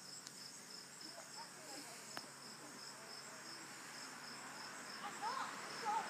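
Crickets chirping steadily, about three chirps a second. Behind them are faint wavering calls that grow louder near the end, and there is a single click about two seconds in.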